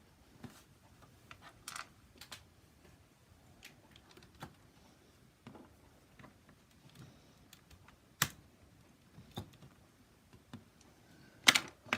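Scattered small clicks and taps on a laptop's plastic underside as the little cover tabs are worked off to reach the screws beneath, with a sharper click about eight seconds in and another near the end.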